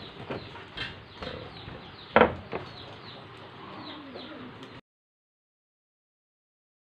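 Background chickens clucking and small birds chirping in short, quick chirps, with one short loud sound about two seconds in. Then the sound cuts out completely to silence for the last two seconds.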